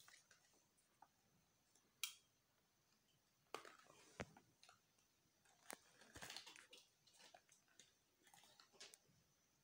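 Faint scratching, crinkling and light clicks of small fingers working at a thin cardboard box, with a sharp tick about two seconds in and a busier patch of crinkling around six seconds.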